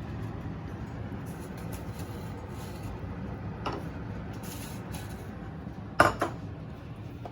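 Kitchen dishes and utensils clattering: a light tap a few seconds in, then two sharp clinks close together near the end, the loudest sounds, over a steady low background noise.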